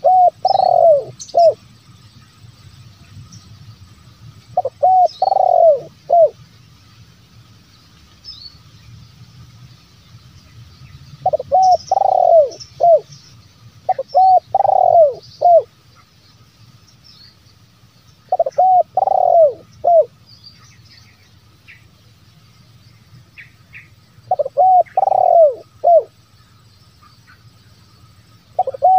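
Spotted dove (terkukur) cooing: about six phrases a few seconds apart, each a quick run of three or four coos ending in a short final note. It is the 'bero kuk' call type that keepers play as a lure to get wild spotted doves to answer.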